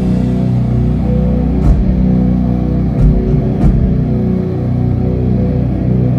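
Doom metal band playing live: sustained low guitar and bass chords, with a few heavy hits about a second and a half, three and three and a half seconds in.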